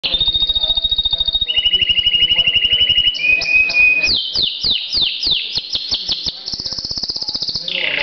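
Domestic canary singing a continuous song of rapid trills, each held at one pitch for a second or two before jumping to another, with a run of falling sweeps, about four a second, in the middle.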